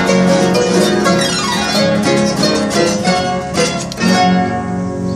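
Two wooden folk harps played together with a strummed guitar: quick plucked runs, a downward sweep across the harp strings about a second and a half in, then a full chord about four seconds in that is left to ring as the closing chord.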